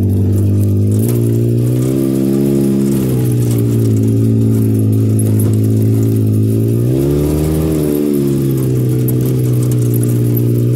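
Car engine droning, heard from inside the cabin. Its pitch steps up about a second in, then rises and falls again around seven to eight seconds in as the car speeds up and eases off.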